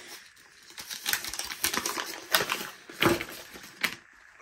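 Small plastic diamond-painting tools (tray and pen) being tipped out of their toolkit bag and set down on the plastic-covered canvas: irregular rustling, crinkling and light clicks, loudest about three seconds in.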